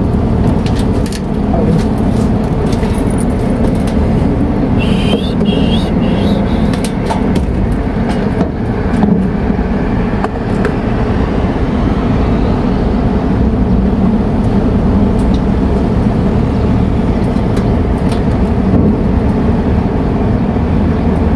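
Air conditioner compressor humming steadily without starting, even with a hard-start kit wired in, with scattered clicks and knocks from work on the unit. The hum is the sign of a compressor that cannot turn over, which the technician judges must be replaced.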